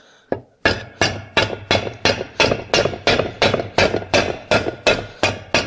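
Rubber mallet striking a Vespa Smallframe engine case half in a steady run of about fifteen blows, roughly three a second. The blows are knocking out a main bearing that went in crooked because it was not cold enough to slip into the heated case.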